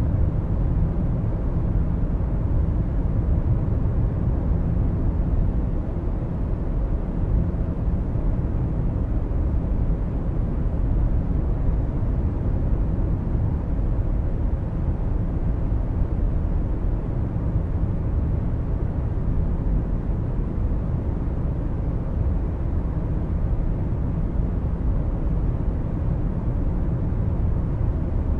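Steady low rumble of a car driving at speed through a road tunnel, tyre and engine noise heard from inside the cabin, unchanging throughout.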